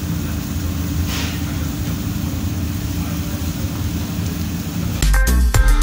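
Steady low machine hum, like a fan or motor, with a faint hiss over it. Music starts abruptly about five seconds in.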